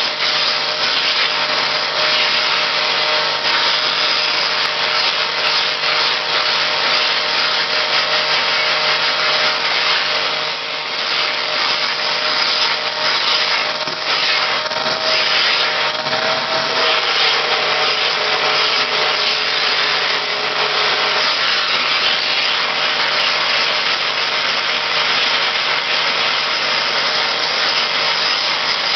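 Vacuum cleaner running steadily with a motor whine as its nozzle is worked over a cat's fur. The whine dips lower for a few seconds around the middle, then settles back.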